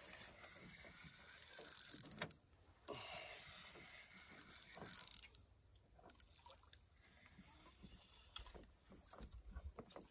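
Fishing reel being cranked, a fast run of ticking in two spells of about two seconds each, as a small fish is reeled in. After that only a few scattered clicks.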